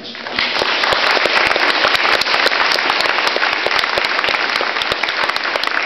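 Audience applauding: many hands clapping together, starting within the first half second and holding steady until it cuts off suddenly at the end.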